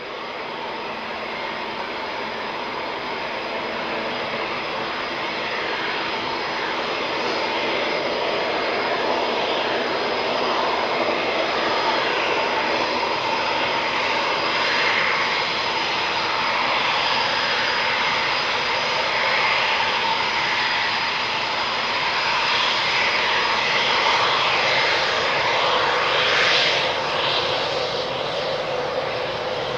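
Twin Eurojet EJ200 turbofan engines of a Eurofighter Typhoon running: a steady jet roar with a high whine through it, growing louder over the first several seconds and then holding steady, with a brief swell near the end.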